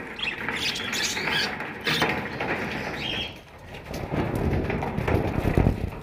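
Budgerigars chirping and chattering in short high calls for the first three seconds. In the last two seconds a louder, low rustling and rumbling noise takes over.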